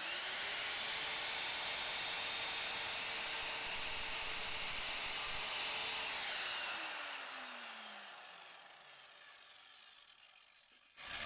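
Evolution R185SMS sliding mitre saw's motor running at speed as the blade cuts through a piece of timber trim. After about six seconds it is released, and the blade spins down with a falling whine that fades out.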